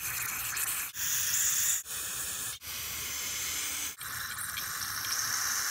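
Aerosol carburetor cleaner spraying through its straw nozzle into a small-engine carburetor to flush out rust and gummy old fuel: a loud hiss in five bursts with brief breaks between them.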